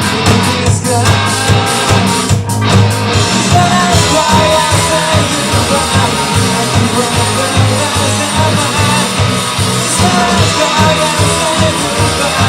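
Live rock band playing loudly: electric guitar, bass and drums with a steady beat, and a singer coming in partway through.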